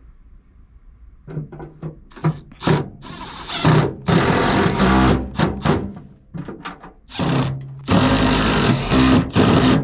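Cordless power tool running in a string of short bursts, then in two longer runs of about a second and a half, near the middle and near the end, as it drives down the nuts that hold the new blower motor on its mounting bolts.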